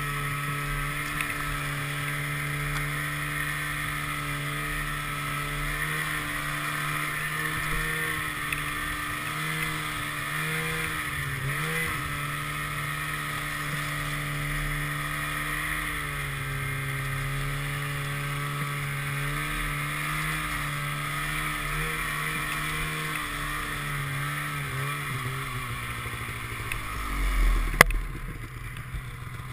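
Polaris snowmobile engine running under load in deep snow, its pitch rising and falling with the throttle. Near the end the revs drop, a single sharp knock sounds, and the engine runs quieter as the sled tips onto its side.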